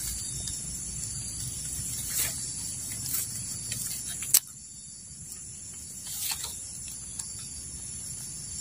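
Steady high-pitched chirring of forest insects, with a few soft rustles from leaves and leaf litter being brushed, and one sharp click a little over four seconds in.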